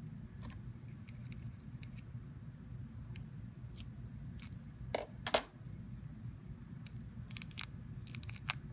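Scissors snipping yarn: two sharp clicks about half a second apart a little past the middle, the second the louder. Soft rustling and small ticks follow as the yarn and crochet hook are handled, over a low steady hum.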